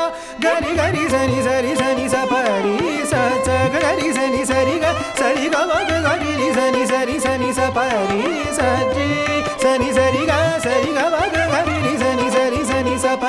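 Background music in a South Indian classical (Carnatic) style: a gliding melody over a steady drone, with a low regular hand-drum rhythm.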